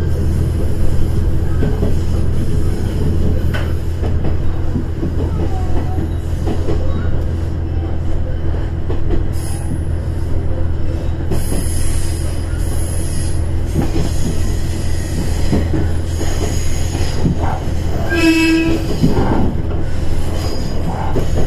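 KiHa 110 diesel railcar under way, heard from its cab: the DMF14HZ diesel engine's steady low drone over wheel-on-rail running noise, with high-pitched flange squeal on curves in the middle and one short horn blast near the end.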